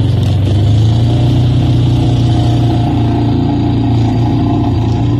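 John Deere Gator utility vehicle's engine running steadily as it tows a sled over snow.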